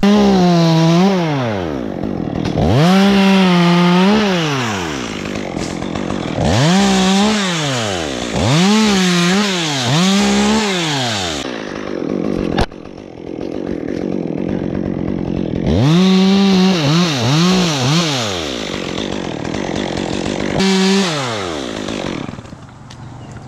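Two-stroke chainsaw cutting limbs, the throttle squeezed again and again so the engine rises to full speed and drops back, about ten times in three clusters. It winds down to idle near the end.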